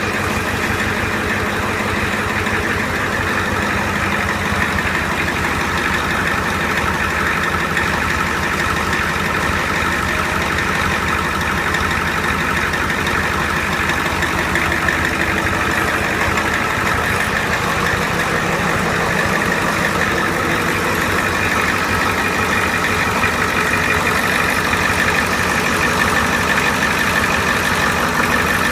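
Vehicle engine idling steadily, with no belt squeal: the squealing drive belt has been cured.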